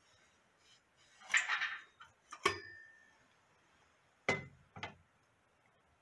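Handling noises as a heat tester is fitted over a ceiling heat detector: a short scraping rustle, then a sharp metallic clink with a brief ring, and two more knocks about half a second apart.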